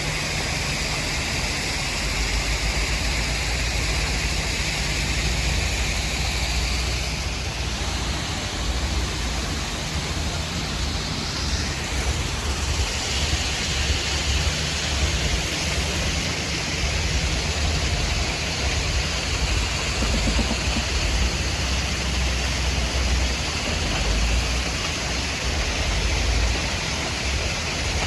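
Heavy machinery running steadily: a continuous low engine rumble under a broad, even noise, with no separate knocks or impacts.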